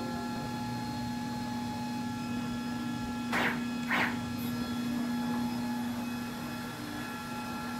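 Energized stepper motors and drivers of a DIY CNC machine humming steadily at rest, one tone with faint overtones. Two short rustles come about halfway through.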